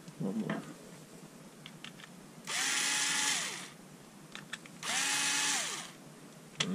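Ryobi cordless drill driving out the housing screws of an impact driver, two short runs of about a second each. In each run the motor's pitch rises as it spins up, holds steady, then falls as it stops. Light handling clicks come before and between the runs.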